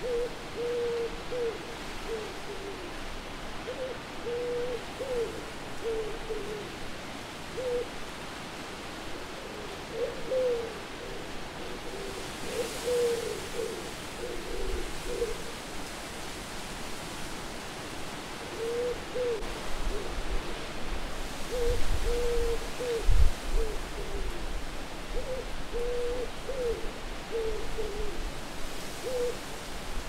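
Owl hooting in repeated runs of short notes over a steady wind. The wind swells about halfway through, and low rumbling gusts come in later.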